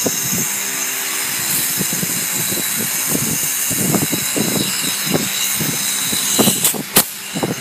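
Galvanised wire cage mesh rattling and clinking as a partition panel is handled and hooked into place, with a sharp click about seven seconds in, over a steady background hiss.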